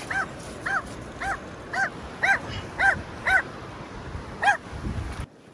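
A dog yipping over and over in short, high-pitched yips, about two a second, with wind and surf noise underneath.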